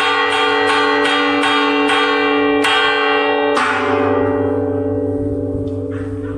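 Church bell struck by its clapper, pulled by hand on a rope: a quick run of strokes about three a second that slows and stops a little over three and a half seconds in, the last stroke left ringing and slowly fading.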